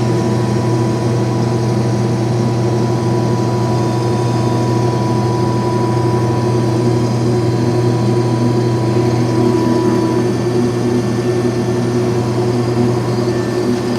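Case IH 2188 combine's diesel engine running steadily, heard from inside the cab as a constant low drone, with the separator not yet engaged. A thin steady high whine sits over it and stops about ten seconds in.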